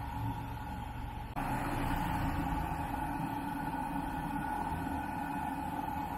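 Steady machine noise with a constant hum, which changes abruptly and grows a little louder about a second and a half in.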